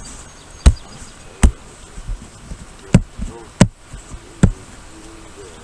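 Five sharp knocks, irregularly spaced, over a faint steady high-pitched hum.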